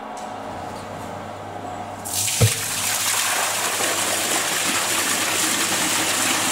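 Water gushing from a flexible hose into an empty test tank as filling begins: a steady low hum gives way about two seconds in to a sudden loud rush with a brief thump, which then runs on steadily.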